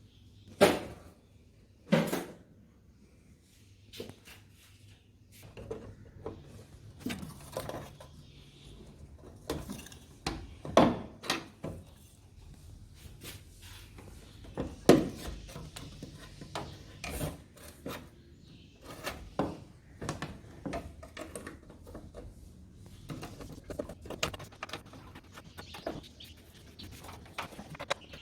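Irregular clinks, knocks and rubbing of hand tools and car parts being handled while a windshield wiper motor is worked on, with a few sharper knocks standing out.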